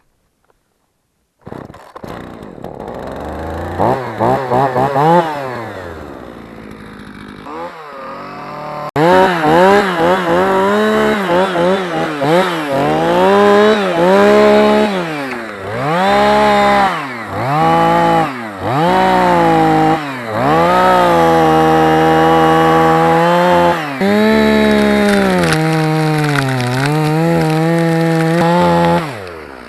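Jonsered 2045 Turbo two-stroke chainsaw starting up about a second and a half in and running at low revs. It is then revved up and down over and over, held at full throttle for a few seconds at a time as it cuts birch, and drops off just before the end.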